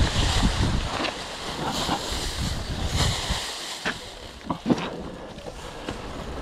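Enduro dirt bike engine running on the throttle, eased off around the middle and picking up again near the end, with wind buffeting the on-bike camera microphone. A few sharp knocks from the bike going over the rough forest ground.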